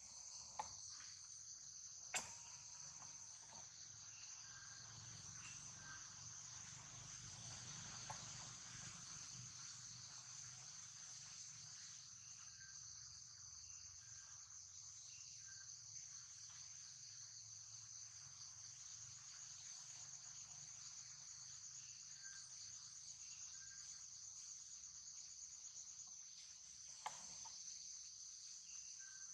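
Steady, high-pitched insect chorus droning without a break, with a couple of sharp clicks, one about two seconds in and one near the end.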